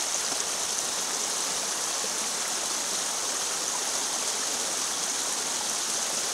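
Water running steadily through a small breach opened in a beaver dam, the pond draining out through the gap.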